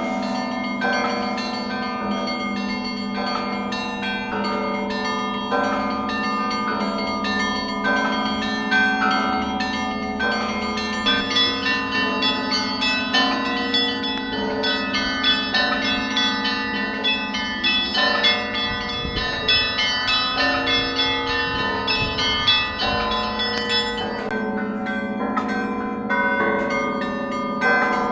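A set of Russian Orthodox cathedral belfry bells rung by a bell ringer: the peal (zvon) calling to the evening service. Quick, dense strikes of the smaller bells ring over a steady hum from the larger bells; the strikes grow busier about a third of the way in and thin out again near the end.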